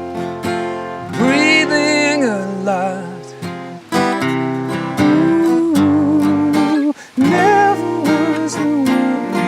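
A song played live on acoustic guitar, with a singing voice holding long, wavering notes over the strumming.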